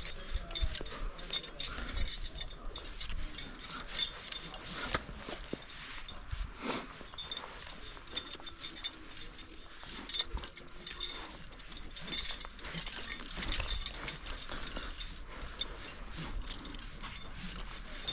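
Climbing hardware (carabiners and gear on a harness) clinking and jangling irregularly during a rappel, with scattered clicks and knocks from the rope and gear.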